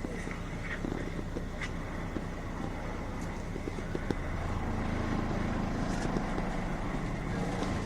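Nissan Diesel Space Runner RM (KC-RM211GSN) city bus's diesel engine heard from inside the cabin, pulling away and revving up louder from about halfway through.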